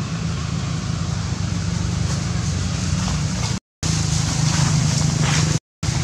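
Steady low rumbling hum with a hiss above it, cutting out completely twice for a moment.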